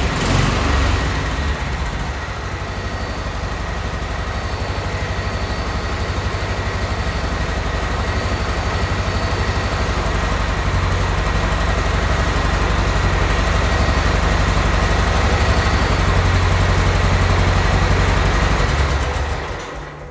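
Tractor engine running steadily with a fast, even firing beat, then dying away and stopping about a second before the end.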